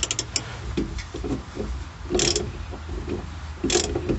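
Half-inch ratchet with a 1⅛-inch socket clicking as it backs off a fuel filter housing cap: a quick run of clicks at the start, then short ratcheting strokes about two and three and a half seconds in.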